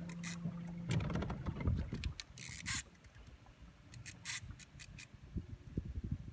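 A steady boat motor hum that stops about a second in, followed by irregular scraping and clicking from an antique Cycloid Micromatic casting reel and rod being worked against a hooked crevalle jack.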